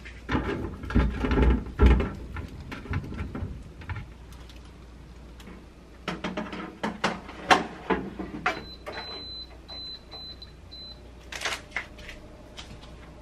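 Whole sweet potatoes knocking into a stainless-steel wire air-fryer basket, then clattering metal as the basket is slid into a countertop air fryer oven. A row of about five short, high electronic beeps follows as the 20-minute timer is set, then a few sharp clicks.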